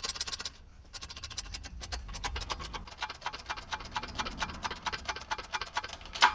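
Hydraulic shop press working as its ram presses a new wheel bearing into a steering knuckle: an even run of sharp clicks, about seven a second. The clicks pause briefly about half a second in.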